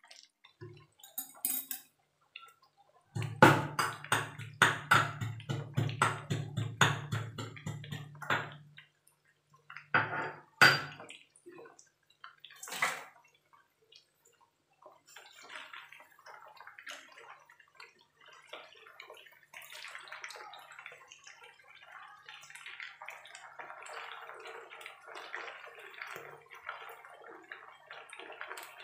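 Chicken pieces shallow-frying in hot oil in a non-stick frying pan: a steady crackling sizzle. In the first half there is a run of knocks and clatter from the pieces being turned in the pan.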